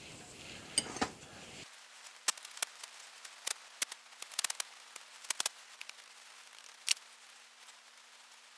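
Faint, scattered light taps and clicks while parting dust is applied to a casting pattern bedded in the sand-casting drag.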